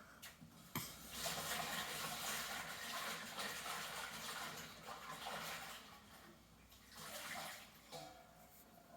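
A pen scribbling on paper, a scratchy hiss of strokes lasting about five seconds, with a sharp tap just before it and a shorter scribble near the end.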